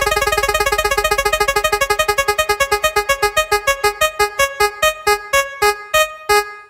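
Spin-the-wheel ticking sound effect: a short electronic piano-like note on every tick. The ticks start very quickly and slow steadily to about three a second as the wheel comes to rest.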